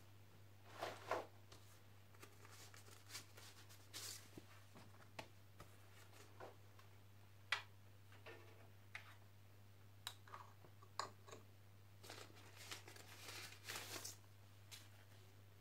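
Scattered soft clicks, taps and rustles of hands handling records and a Sanyo TP 388 turntable's platter and spindle, the sharpest click about seven and a half seconds in, over a faint steady low hum.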